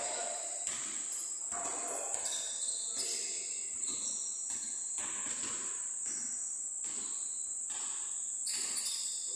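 Steady high-pitched drone of insects, with short bursts of noise about once a second.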